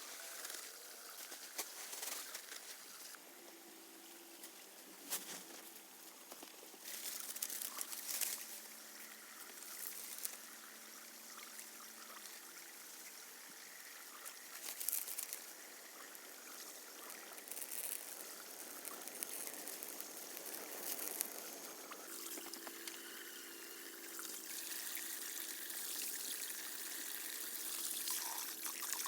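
Water trickling and pouring, with scattered sharp knocks.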